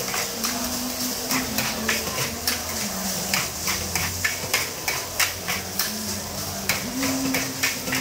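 Metal ladle and spatula striking and scraping a wok as fried rice is stir-fried, a few clanks a second over a steady sizzle.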